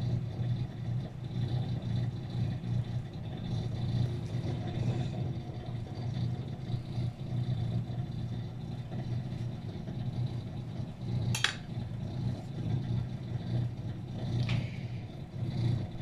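Steady low machine hum. A sharp click about eleven seconds in and a fainter one a few seconds later.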